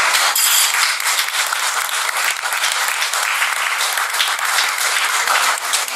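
A roomful of people applauding, a dense, steady clapping of many hands.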